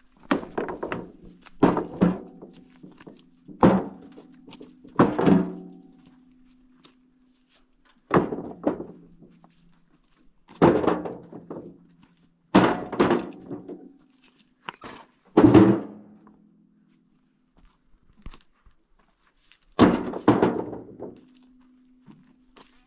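Heavy thunks: about ten blows at irregular intervals of one to four seconds, each with a short ringing tail, with a faint low hum between some of them.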